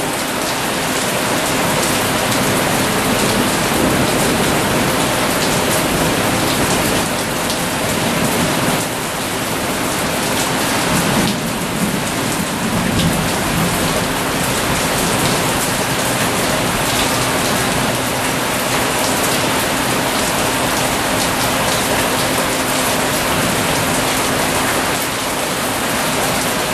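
Heavy rain falling steadily, a dense even hiss, with a faint steady low hum beneath it.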